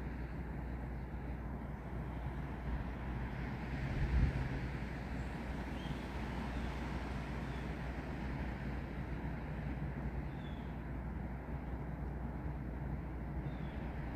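Steady wind with a deep rumble and a brief low buffet about four seconds in.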